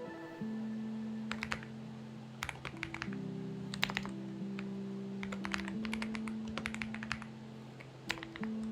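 Short runs of typing on a Xinmeng X98 mechanical keyboard, quick clusters of key clicks with pauses between them, over background music of held chords that change every second or so.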